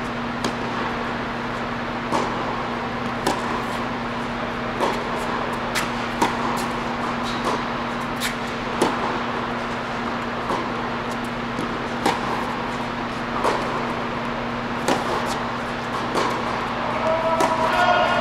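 Tennis ball struck by rackets and bouncing on an indoor hard court during a baseline rally: sharp pops every second or so over a steady hum. A brief squeak comes near the end.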